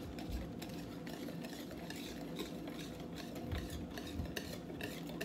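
Wire whisk stirring a chunky pudding mixture in a mixing bowl, with a rapid run of light clicks and scrapes of the whisk against the bowl.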